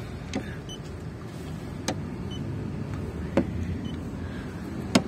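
Paint thickness gauge probe tapped against a car's body panels, four sharp taps about a second and a half apart, each followed by a short faint high beep from the gauge as it takes a reading. A steady low hum runs underneath.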